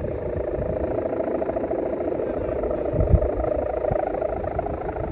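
Strong wind buffeting the microphone in irregular low gusts, the strongest about three seconds in, over a steady pulsing drone.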